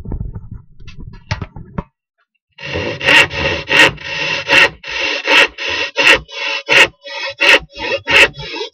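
Fine-toothed hand saw cutting a wooden board in steady back-and-forth rasping strokes, about three every two seconds, starting a couple of seconds in after a few knocks and rustles of handling.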